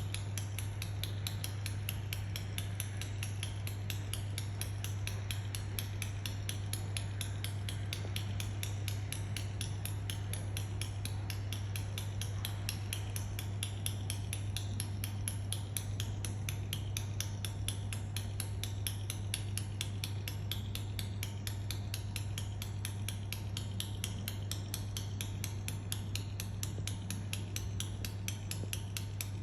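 A stationary train giving off a rapid, even clicking, several clicks a second, like tutting, over a steady low hum. The cause is unknown.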